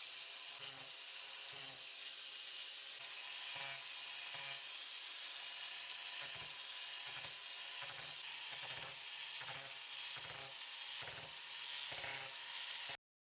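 Small power tool running steadily while cutting and shaping the semicircular latch cutouts in a boat hatch panel, with a low pulse about every half second as the tool is worked back and forth.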